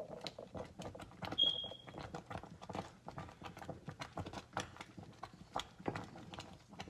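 Thick quick oats cooking in a saucepan: irregular soft clicks and pops. A short high beep sounds about a second and a half in.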